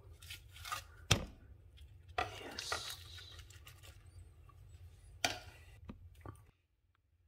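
Fingers pressing and tapping the crisp skin of a whole fried fish on a glass plate: a sharp tap about a second in, then a few short crackles and rustles over a low hum. The hum cuts off near the end.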